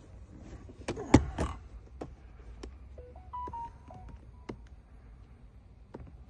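Handheld key programming tool giving a run of short beeps of different pitches as its buttons are pressed through the menus, amid clicks and taps. There is a loud knock about a second in.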